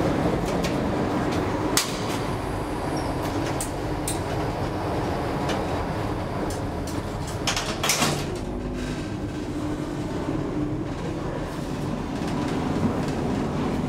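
1986 KONE inclined elevator with a steady machinery hum in the car. A few sharp clicks come early, then the sliding doors clatter shut about eight seconds in and the car rides on with the hum.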